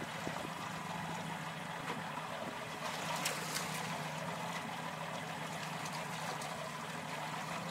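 Boat engine running steadily under a wash of water sloshing and splashing at the hull, with a few sharper splashes about three seconds in.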